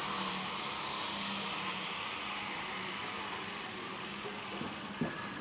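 Large prize wheel spinning, its pointer clicking over the pegs so fast that the clicks run together into a rattle, which slowly fades as the wheel loses speed.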